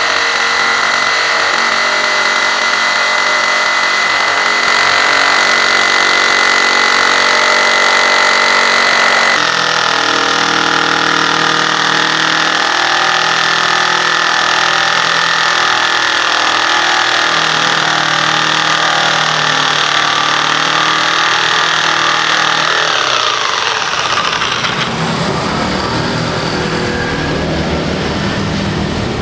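Ossel P431 corded jigsaw running under load, its blade sawing a curve through a 1.5-inch-thick board of jati Belanda wood. The steady motor tone shifts about nine seconds in, and near the end the motor pitch falls as the saw winds down.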